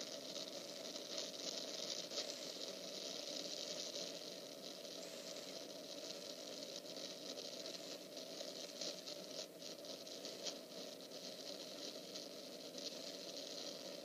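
Steady hiss with irregular faint crackling.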